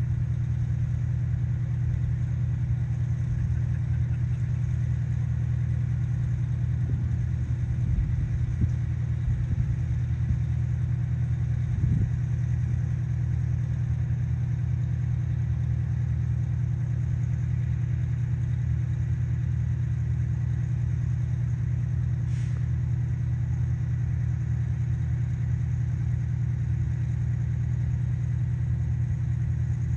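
An engine idling steadily with a low, even hum, with a few faint knocks between about eight and twelve seconds in.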